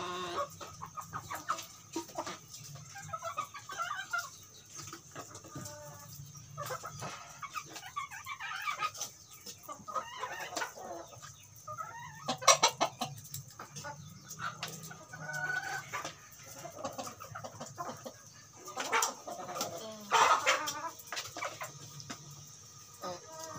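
A flock of native chickens clucking and calling, many short calls scattered throughout. Several sharp knocks cut in, the loudest about halfway through and near the end, over a low steady hum.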